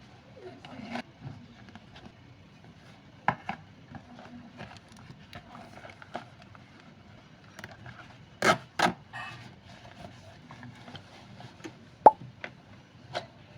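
Scattered knocks, clicks and rubbing of objects being handled, over a faint low hum. The loudest is a pair of knocks about eight and a half seconds in, and a sharp click comes near the end.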